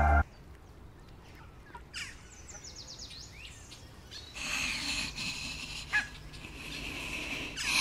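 Small forest birds chirp in quiet woods after the music cuts off. From about halfway through comes a raspy, hissing breath from a zombie, with a brief click near the end and the breathing swelling louder at the close.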